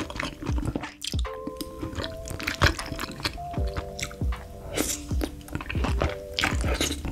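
Close-miked slurping and chewing of saucy noodles, with many short wet mouth sounds, over background music with held chords.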